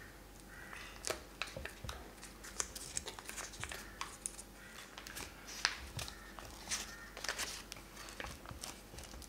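Foil-lined butter wrapper crinkling as it is peeled open and unfolded from a block of butter, an irregular string of sharp crackles.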